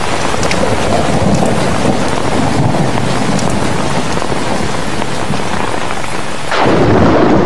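Heavy rain falling steadily. A rumble of thunder swells up near the end.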